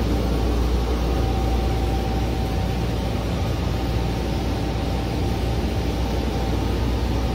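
Steady low drone and hum inside a stationary airport people-mover train car, with a faint steady high tone over it.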